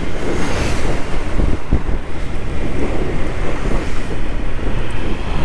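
Wind buffeting a helmet-mounted microphone on a scooter moving at road speed: a loud, steady, dense rumble, with a brief hiss about half a second in.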